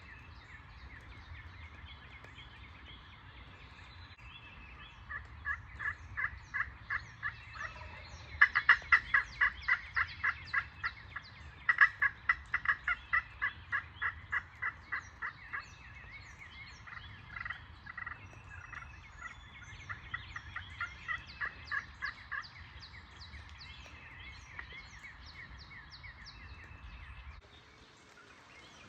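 Turkey yelping: several long runs of evenly spaced yelps at about four or five a second, loudest in the middle. Small birds chirp faintly behind them.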